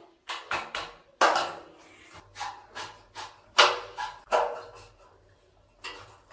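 Irregular sharp metallic knocks and clanks, about ten in all with a short ring after each, as a light-gauge galvanised steel C-channel is set against a tiled wall and fastened with a screwdriver; the loudest strikes come about a second in and again midway.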